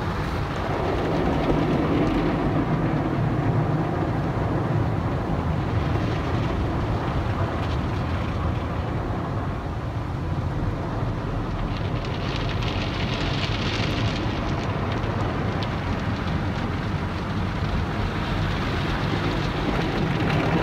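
Automatic tunnel car wash heard from inside the car: MacNeil cloth wash brushes rubbing across the windshield, then water and foam spraying onto the glass over a steady machinery hum. The spray hiss grows louder for a few seconds about twelve seconds in.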